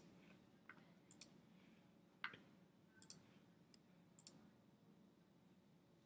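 Faint computer mouse clicks, about seven spread irregularly, the loudest a little over two seconds in, over near-silent room tone.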